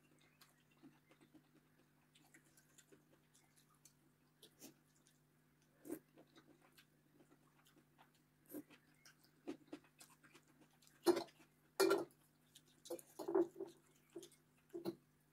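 A person eating noodles: short slurps and chewing, with a fork and spoon now and then knocking and scraping against a ceramic bowl. The sounds get louder and more frequent in the second half, over a faint steady low hum.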